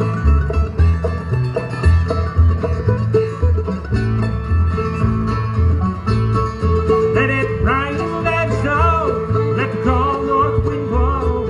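Bluegrass band playing live: acoustic guitar, mandolin, fiddle, upright bass and five-string banjo, over a steady walking bass. A higher, sliding melody line comes in over the band about seven seconds in.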